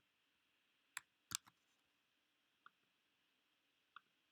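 A handful of sharp, separate computer mouse clicks: two close together about a second in, then single clicks near the middle and near the end, over near silence.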